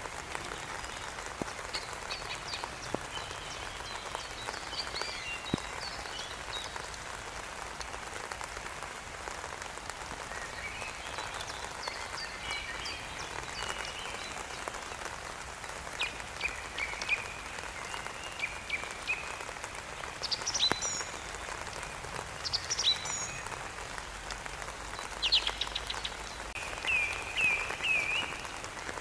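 Steady rain falling, with scattered bird chirps and calls over it, including a run of four quick repeated notes near the end.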